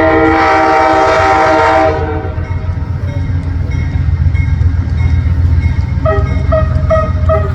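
Amtrak passenger locomotive's horn sounding one long chord-like blast that cuts off about two seconds in, over the steady low rumble of the train rolling into the station. Near the end comes a run of short repeated tones, about two a second.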